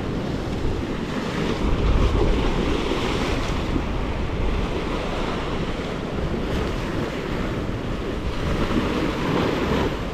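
Surf washing against a jetty, with wind buffeting the microphone; a stronger gust about two seconds in.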